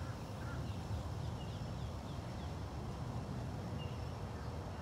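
Outdoor ambience: a steady low rumble, with small birds chirping faintly a few times.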